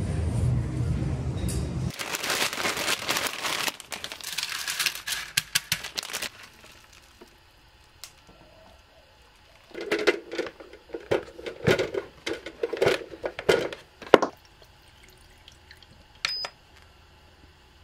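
Background music cuts off about two seconds in, followed by a few seconds of crinkling and clattering. Later come clicks and knocks of cookware and plastic being handled on a kitchen counter, and a short electronic beep near the end as an electric egg cooker's button is pressed.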